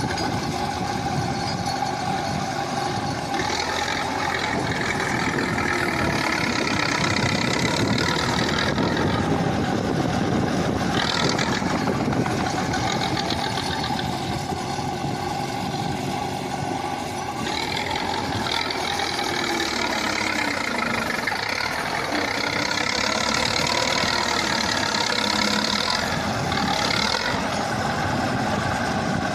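KhTZ T-74 crawler bulldozer's diesel engine running continuously while working, with several stretches where it turns harsher and louder before settling back.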